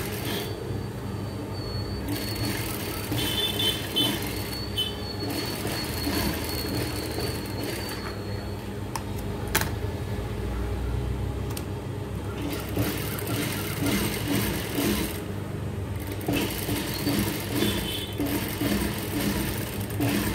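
Industrial lockstitch sewing machine running steadily as fabric is fed through it, stitching down a folded seam.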